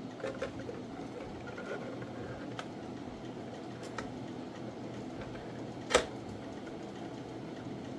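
Light clicks and taps of 3D-printed PLA plastic parts being handled and fitted together, with one sharper click about six seconds in.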